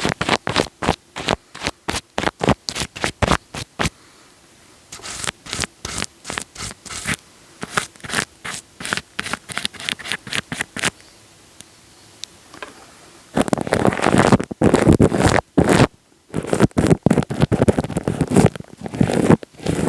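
Wet, sticky material worked against a microphone close up, giving crackly, scratchy bursts a few times a second. They come in runs with brief pauses and become denser and louder about two-thirds of the way through.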